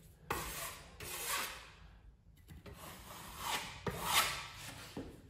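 Steel taping knife scraping over the wall in several strokes, pressing fiberglass mat tape tight into wet joint compound.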